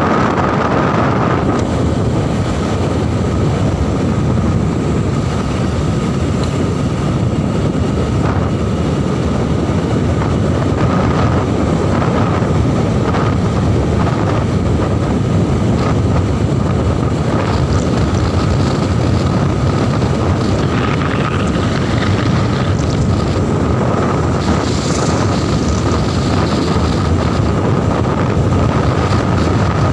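Steady wind rushing over the microphone on a moving motorcycle, with the engine running evenly beneath it.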